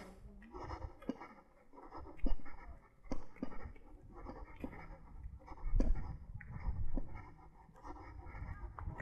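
Rustling and irregular light knocks from a camera being carried on a walk, with footsteps on a paved path and swells of low wind rumble on the microphone.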